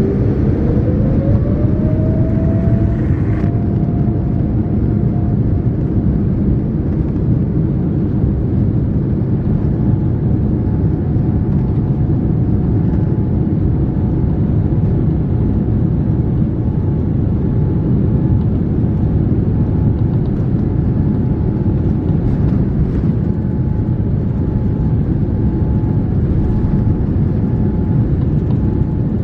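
Steady, loud cabin rumble of a Japan Airlines Boeing 787-9 heard from inside the passenger cabin. A whine rises in pitch over the first few seconds and then holds steady, and a fainter steady tone joins about nine seconds in.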